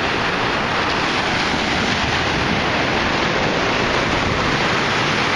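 A steady rush of ocean surf mixed with wind noise on the microphone, even and unbroken throughout.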